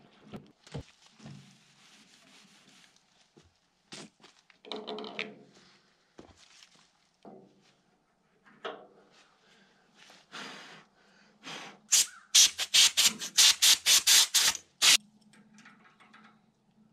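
Handling noises of work on an old tractor: scattered knocks and rustles, then about twelve seconds in a quick run of about a dozen loud, sharp clacks, roughly four a second.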